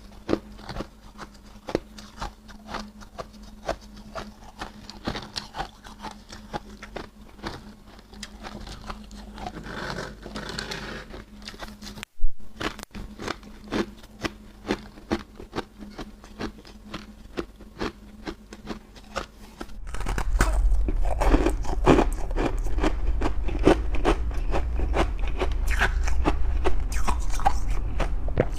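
Freezer frost being bitten and chewed close to the microphone: a dense run of crisp, crunchy ice crunches. About twelve seconds in there is a brief dropout and a sharp click. From about twenty seconds in, the crunching gets louder and denser over a low hum.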